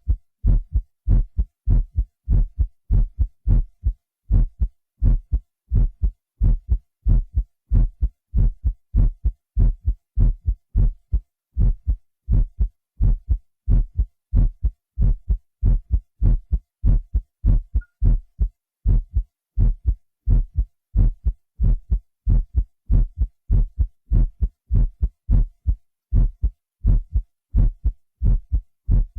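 Recorded human heartbeat, digitally processed and enhanced with a Synclavier: deep thumps in a steady, even rhythm, with silence between the beats.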